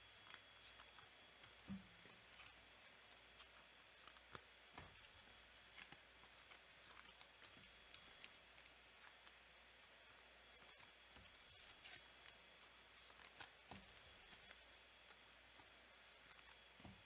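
Near silence, with faint scattered clicks and soft rustles of trading cards and foil pack wrappers being handled.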